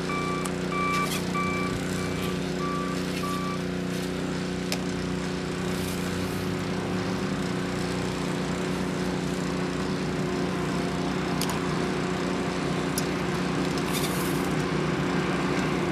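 Engine of a construction machine running steadily at idle, with a backup alarm beeping for the first few seconds and then stopping. A few light clicks of tools or pipe are heard over the engine.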